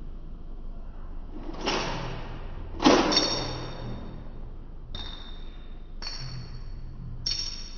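Two sharp snaps, about a second apart, the second louder, typical of a spring-loaded toy pistol firing. From about five seconds in come bright bell-like pings, roughly one a second.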